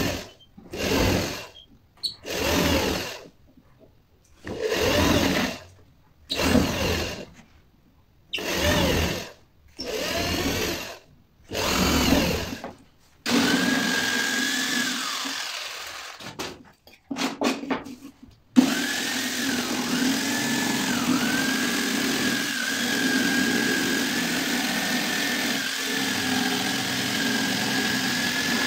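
An electric drill runs in a series of short bursts, each spinning up and winding down, as it bores into a thin wooden strip. About halfway through, an electric jigsaw starts cutting the wood, running steadily with a brief stop-start before it carries on to the end.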